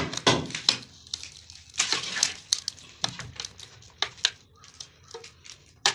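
White plastic cover plate being pressed by hand onto a modular switch board set in the wall: an irregular run of plastic clicks and knocks, with a short scrape about two seconds in.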